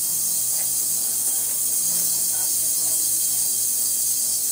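A 1200-watt ultrasonic rod transducer running in a tank of plain water: a steady, loud, high-pitched hiss of the water cavitating, with a faint low hum beneath.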